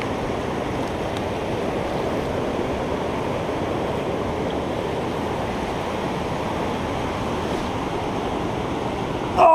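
Steady rush of shallow river rapids running over rocks.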